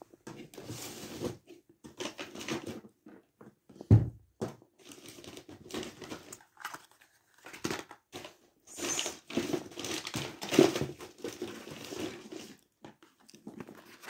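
Crinkly lining of a fabric pop-up cat tunnel rustling and crackling in irregular bursts as a rabbit moves in it, with one sharp thump about four seconds in.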